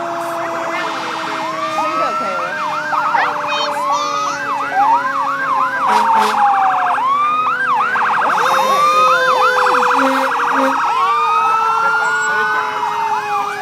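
Several fire-apparatus sirens sounding at once as the vehicles pass. Overlapping rising wails and stretches of rapid yelp are layered over a long, low siren tone that slowly falls in pitch.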